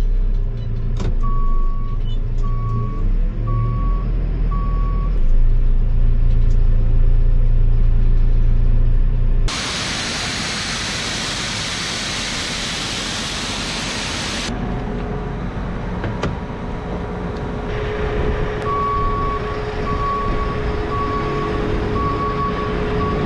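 Diesel farm machinery running steadily, with a repeating high warning beep, four beeps in a row, early on and again near the end. A loud steady hiss takes over for about five seconds in the middle.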